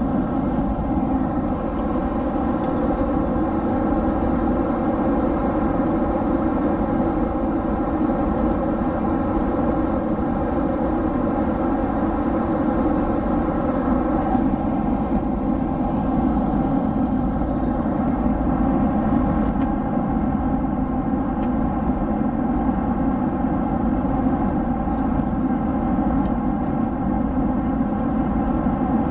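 Steady cabin drone of a Boeing 767 in flight, heard inside the cabin: jet engine and airflow noise with faint steady engine tones running through it.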